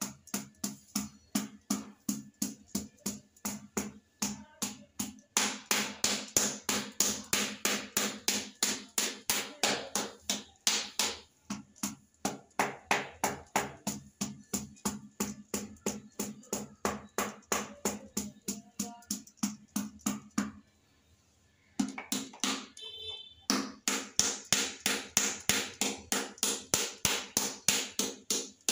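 Rubber mallet tapping a floor tile down onto a stair step to bed it in epoxy adhesive. The knocks come at a steady pace of about three a second, with a short pause about two thirds of the way through.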